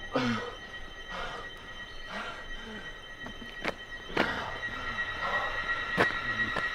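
A steady high-pitched ringing drone, like a tinnitus effect, under a man's heavy gasping breaths about once a second, with a few sharp clicks.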